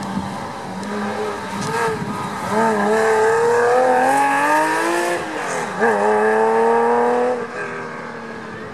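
Porsche 911 (996) flat-six accelerating hard out of a corner, revs climbing, with a sharp dip in revs about six seconds in before climbing again, then fading as the car pulls away.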